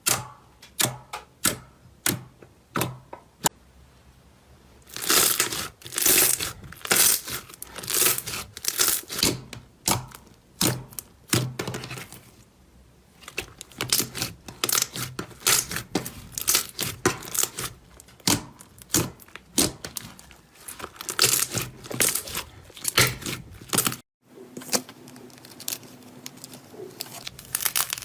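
Slime being squeezed and worked by hand: a run of sharp clicking pops, then dense crackling and crinkling.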